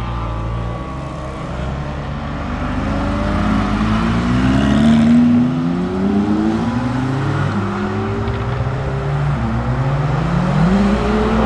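Lamborghini Huracán STO's naturally aspirated V10 accelerating hard, its pitch climbing and dropping back with each upshift several times over.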